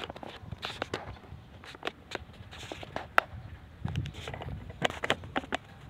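Irregular sharp crackles and ticks of dry leaves and litter on bare ground being stepped on.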